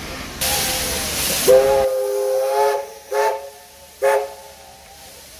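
Steam locomotive blowing off a loud hiss of steam, then sounding its whistle: one long blast of several notes at once, followed by two short toots.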